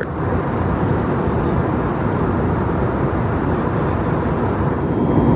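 Steady rushing cabin noise of an Airbus A321neo in flight: airflow and engine drone heard from a passenger seat, with no single event standing out. It grows slightly louder near the end.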